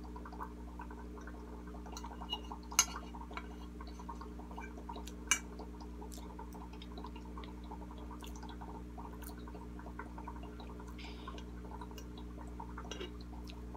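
Aquarium air pump humming steadily, with bubbles gurgling in the tank water. About three and five seconds in, a metal fork clinks sharply twice on a ceramic plate.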